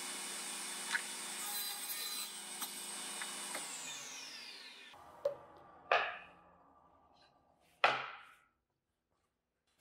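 Table saw running steadily, then winding down after being switched off, its whine falling in pitch over a second or two. Then wooden pieces knock down on the saw's metal table, once lightly and twice sharply.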